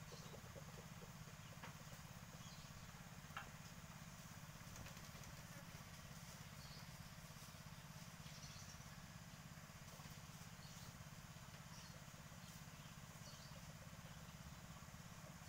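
Near silence: faint outdoor background with a steady low hum and a few faint ticks, one slightly louder click about three and a half seconds in.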